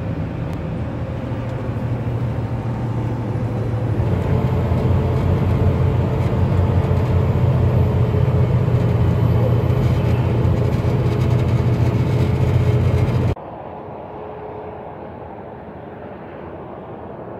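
Steady drone of a truck's engine and road noise heard from inside the cab while driving on a highway, getting louder about four seconds in. Near the end it cuts off abruptly to a much quieter, duller background hiss.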